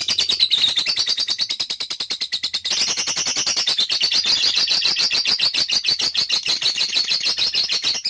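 Lovebird singing its long continuous 'ngekek' song: a fast, unbroken chattering trill of about ten high notes a second, growing louder about two and a half seconds in.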